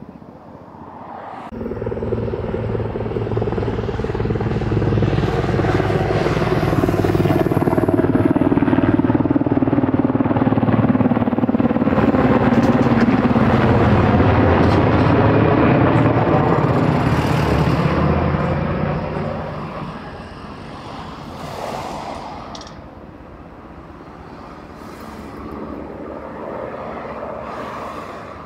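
Sikorsky H-60 Seahawk helicopter flying past. Its rotor and engine noise comes in suddenly about a second and a half in and is loudest through the middle, with the pitch falling as it passes. It then fades as the helicopter flies away.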